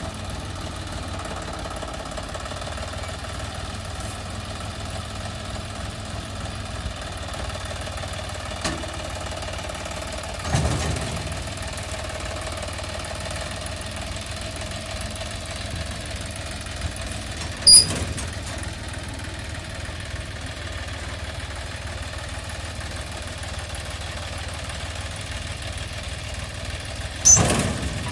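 John Deere 5050E tractor's three-cylinder diesel engine running steadily at low speed while towing a thresher over a rutted track. Three sharp knocks stand out, about 10, 18 and 27 seconds in.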